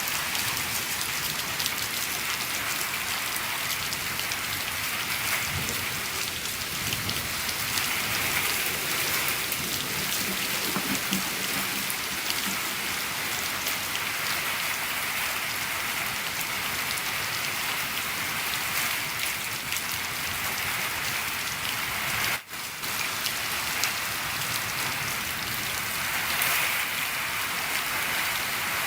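Steady rain falling on a shed roof: a dense hiss full of individual drops ticking. There is a brief dropout in the sound about 22 seconds in.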